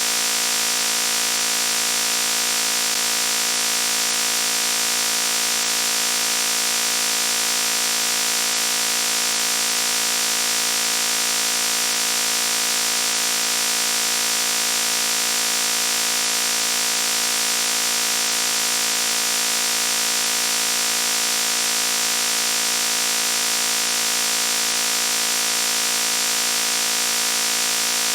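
Loud, steady electronic buzzing noise, a harsh hissy tone that holds the same pitch and level without a break.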